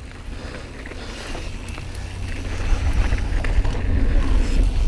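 Wind buffeting the microphone of a camera riding on a mountain bike, a low rumble that grows louder about halfway through as the bike picks up speed, with a few light ticks and knocks from the bike over the trail.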